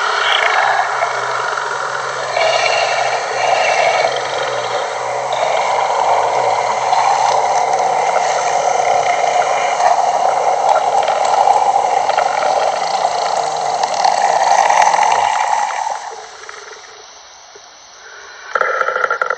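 Designed monster creature sound effect: a dense, continuous creature vocalization that dies away about sixteen seconds in, with a brief loud burst near the end.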